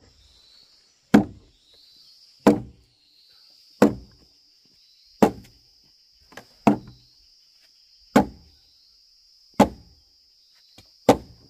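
Eight heavy blows on wood, evenly spaced about one and a half seconds apart, each a sharp thud that dies away quickly. A steady high insect drone runs underneath.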